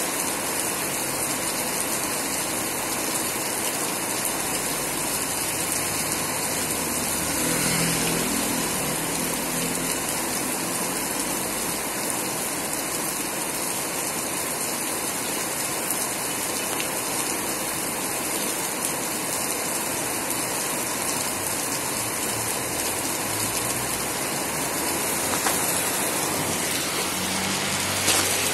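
Heavy typhoon rain pouring down, a steady dense hiss of rain on the street. About eight seconds in, a low engine sound swells and fades as a vehicle passes.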